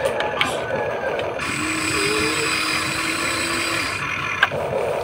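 Huina 1593 remote-control excavator's electric motors whirring as the boom and bucket move to dump sand. A steady hum sets in about one and a half seconds in, and there is one sharp click near the end.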